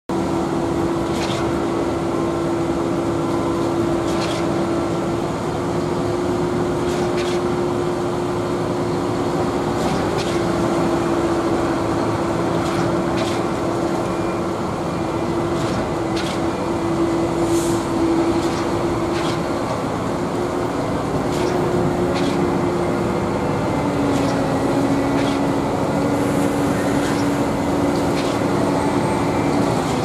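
Truck-mounted concrete boom pumps and concrete mixer trucks running steadily as concrete is pumped, a continuous diesel drone with a sharp knock every few seconds.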